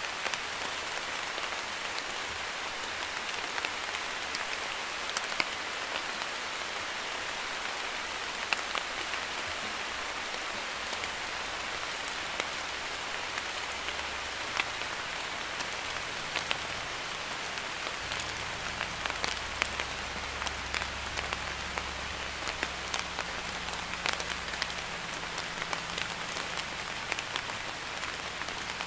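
Light rain falling on a wet hard surface: a steady, even hiss with many separate drop ticks scattered through it.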